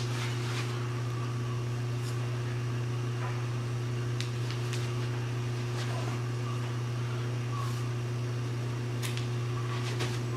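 A steady low electrical hum, as from an appliance running, with a few faint ticks over it.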